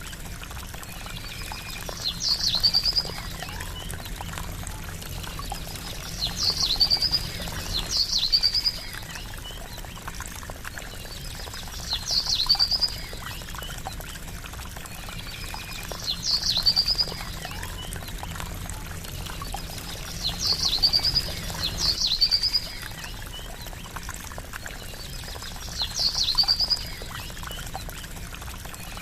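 Steady trickling, gurgling water, with a short high call (a sharp rise ending in a quick trill) repeated every few seconds, sometimes twice in close succession.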